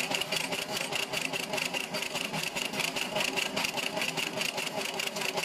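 Sugarcane peeling machine running with a fast, even rattle, several beats a second, as its rotating scraper head strips the rind from a cane stalk being fed through.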